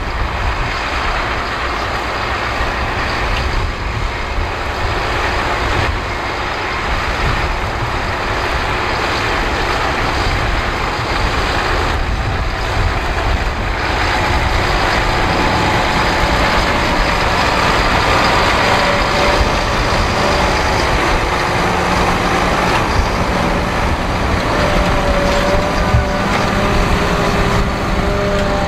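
Valtra tractor's diesel engine running steadily under load, pulling a five-furrow reversible plough. A clearer engine hum comes through in the second half.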